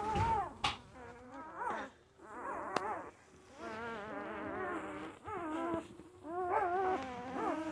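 One-week-old Labradoodle puppies whining and squeaking: a string of wavering, high-pitched whines one after another, with one long drawn-out whine in the middle and several overlapping near the end.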